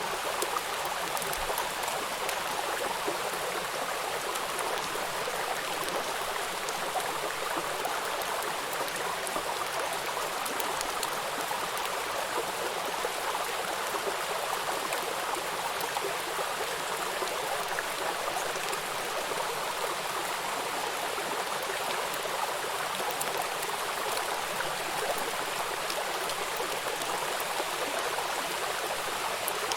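Steady rush of water flowing in a stream, an even hiss with faint small splashes and no change throughout.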